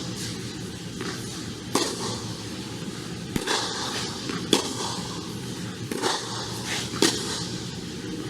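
Tennis rally: a string of about six sharp pops of rackets striking the ball, roughly a second apart, some fainter ones likely ball bounces, over steady court noise.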